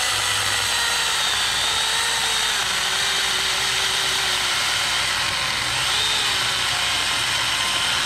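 Stihl GTA26 battery-powered mini pruning chainsaw running steadily while cutting through a log, the chain rasping through the wood. The motor's pitch sags a little under load: pushed hard, the saw nearly bogs down.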